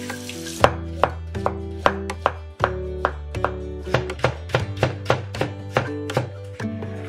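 Kitchen knife chopping carrot into thin strips on a wooden cutting board, a steady rhythm of about two and a half strokes a second starting about half a second in, after a brief moment of running tap water. Background music plays under it.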